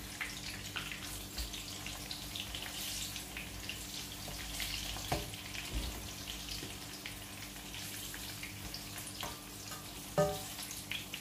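Green chilies frying in hot oil in a pan: a steady crackling sizzle, with two light knocks about five and ten seconds in. The chilies are scorching, which the cook puts down to too high a flame.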